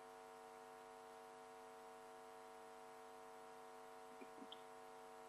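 Near silence in a pause between speech, with only a faint, steady electrical hum.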